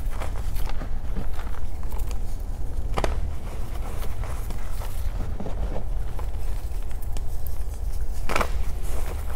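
Reformed gym chalk being crushed and crumbled by hand: a run of small dry crackles, with two louder snaps about three seconds in and near the end, over a low rumble.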